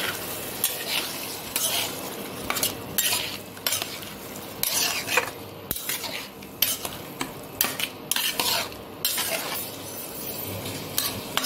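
Metal spatula stirring and scraping potato cubes and shrimp around a pan in repeated, irregular strokes, over a steady sizzle of frying in oil: the curry being sautéed (koshano) in its masala.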